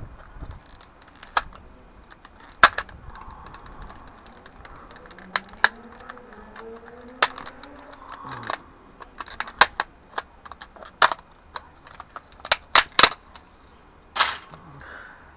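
Small plastic and metal parts of an optical disc drive clicking and clattering as it is pried apart by hand, with sharp irregular knocks that come faster in the second half. A drawn-out creak in the middle, as parts are forced apart.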